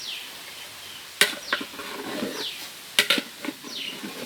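A few sharp metal knocks of a ladle against a cooking pot, with a bird repeating a short call that slides downward in pitch, about four times.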